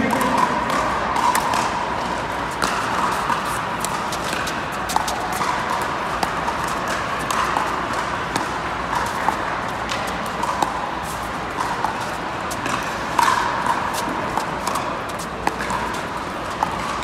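Pickleball paddles striking the hard plastic ball in a fast rally at the net: irregular sharp pops, at times several a second, the loudest about thirteen seconds in. Under them runs the steady noise of an indoor hall, with hits from a neighbouring court.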